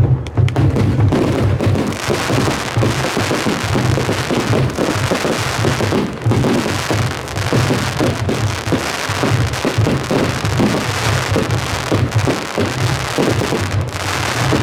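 Japanese taiko drum ensemble playing a loud, fast rhythm, a dense run of strikes over a deep drum boom.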